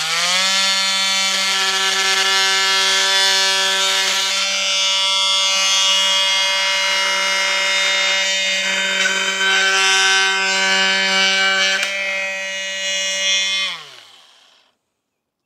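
Cordless oscillating multi-tool with a titanium-coated blade cutting dry wood: the motor spins up at the start and holds a steady pitched whine. It winds down and stops near the end.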